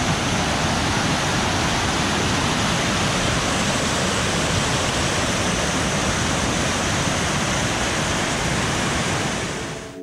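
Waterfall: falling water makes a steady, even rush that fades down near the end.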